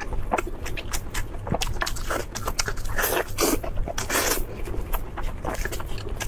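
Close-miked crunching and chewing of crispy fried food: a dense run of crackly bites and crunches.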